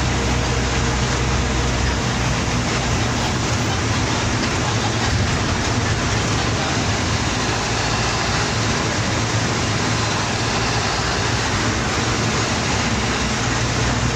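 Bus engine running and road noise heard from inside the moving bus: a steady low drone under an even hiss. The deepest part of the drone fades about two seconds in and comes back near the end.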